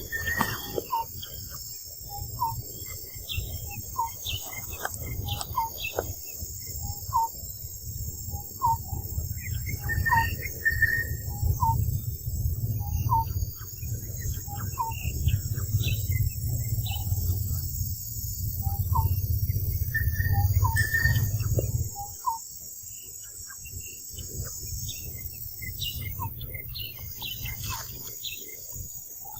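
Outdoor ambience: a steady high drone of insects, with short chirping calls repeating every half second or so. A low rumble, like wind on the microphone, is the loudest thing until it cuts off about three quarters of the way through.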